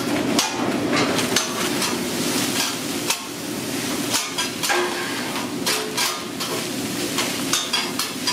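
Restaurant kitchen clatter: many sharp clicks and knocks, with aluminium foil and deli paper crinkling as a cheesesteak is wrapped. Underneath is a steady sizzle from a griddle.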